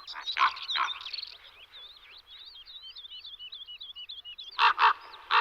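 Small birds giving alarm calls. There are repeated calls at first, then a fainter rapid twittering, then loud, quickly repeated calls starting about four and a half seconds in. The alarm is raised at an approaching bird of prey.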